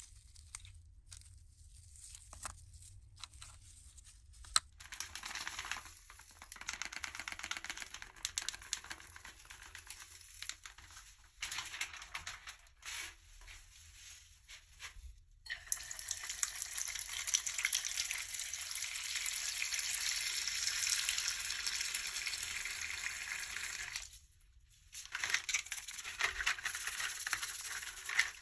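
Light clicks and scraping as small parts of a die-cast model car are handled and pried apart, then water running steadily into a plastic tub for several seconds, the loudest stretch. Near the end, a toothbrush scrubbing the parts in soapy water.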